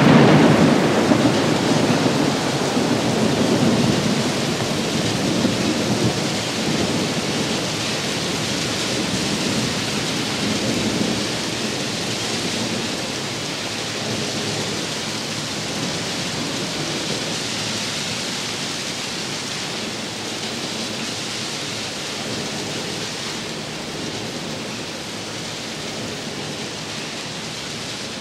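Recorded thunderstorm sound effect: steady heavy rain hiss with a low rumble of thunder that dies away over the first ten seconds or so, the whole storm slowly fading down.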